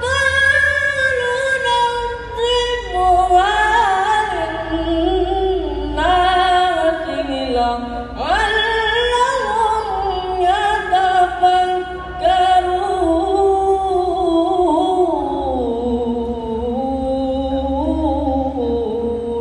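A boy chanting the Qur'an in the melodic tilawah style into a microphone: long held, richly ornamented phrases that climb to a high phrase about eight seconds in and sink low near the end, over a steady low hum.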